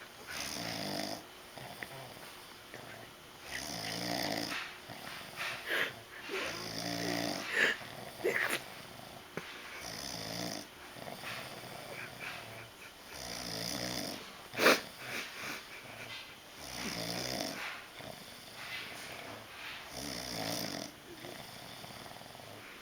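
A man snoring in a slow, regular rhythm, one snore about every three and a half seconds. Between the snores a dog makes short, sharp noises, the loudest one about fifteen seconds in.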